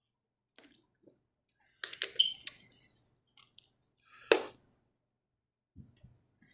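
A few sharp clicks and knocks of kitchen things handled on a countertop, with one louder knock a little past four seconds in.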